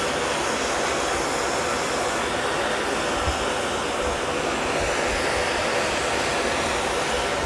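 Hose-fed handheld gas torch burning with a steady hiss while its flame melts lead filler on a steel car body panel.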